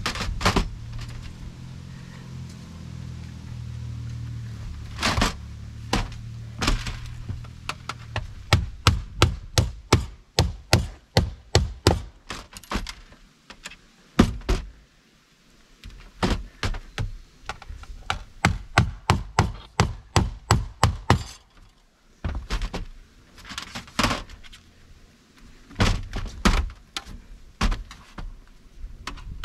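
Hammer striking sheet-metal roof flashing: runs of quick, sharp blows, about three a second, broken by short pauses.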